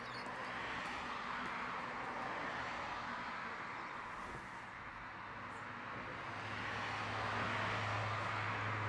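Road traffic passing on a street, an even wash of car tyre and engine noise that swells and fades as vehicles go by. A steady low hum joins about two-thirds of the way through and grows louder.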